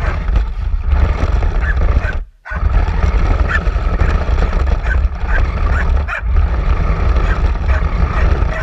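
Steady low rumble of a radio-controlled toy car driving over rough concrete, heard through the action camera mounted on it, with a dog barking now and then. The sound cuts out briefly a little over two seconds in.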